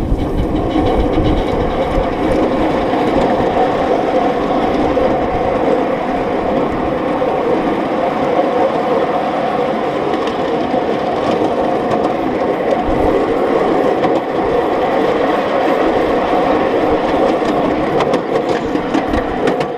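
7.25-inch gauge coal-fired miniature steam locomotive and riding car running along the track: a steady rolling rumble of wheels on rails, with faint irregular clicks.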